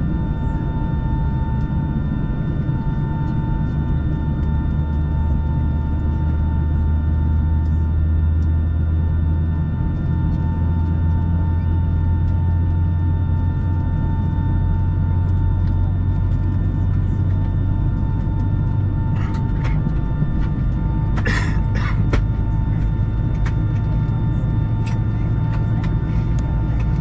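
Steady cabin noise of a Boeing 757-300 on the ground: a constant low rumble with a steady whine from the running engines. A short burst of noise, like a cough, about three-quarters of the way in.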